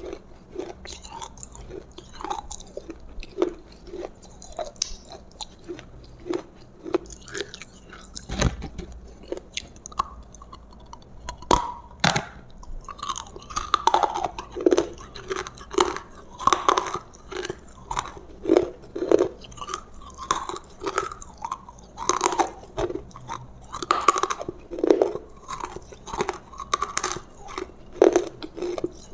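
Close-miked chewing of roasted food: irregular crunches and mouth smacks, coming thicker and louder in the second half.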